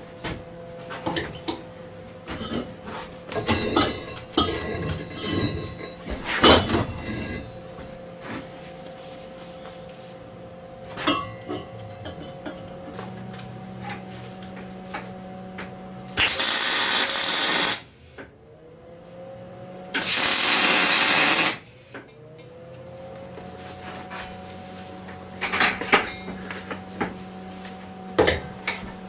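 Steel clanks and knocks as square tube legs are set against the steel plate, then two short electric-arc welding tacks, each about a second and a half of loud, steady crackling hiss, the second a couple of seconds after the first. A steady hum runs underneath.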